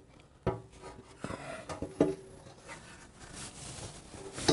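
Handling noise from a motorcycle gas tank being held and shifted on the frame: a few light knocks in the first two seconds, then soft rubbing near the end.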